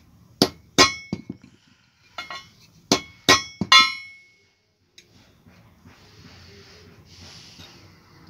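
Hand hammer striking hot iron on an anvil while a trishul is forged, giving sharp ringing clangs. The blows come in two quick groups over the first four seconds, and the last strike rings the longest.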